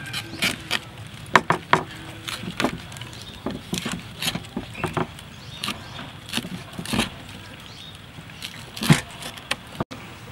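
Cleaver chopping squid on a wooden cutting board: a string of sharp knocks as the blade strikes the board, irregular, about one or two a second with short pauses.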